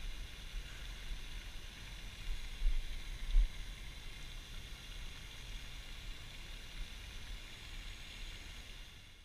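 Outdoor ambience dominated by wind rumbling on the microphone, with two stronger gusts about two and a half and three and a half seconds in, over a steady high hiss.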